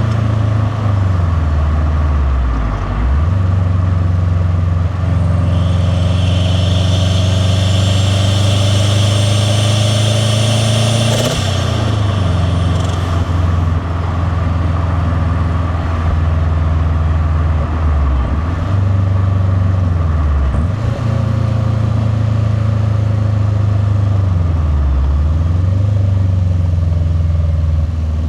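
Turbocharged flat-four boxer engine of a 2001 JDM WRX STi pulling through several gear changes, its pitch climbing with revs and dropping at each shift. During one long pull a turbo whistle rises, then cuts off with a blow-off valve release as the throttle lifts, about eleven seconds in.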